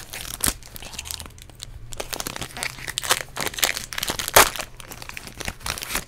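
Foil wrapper of a Magic: The Gathering set booster pack crinkling and tearing as it is opened, a run of crackles with the loudest about four and a half seconds in.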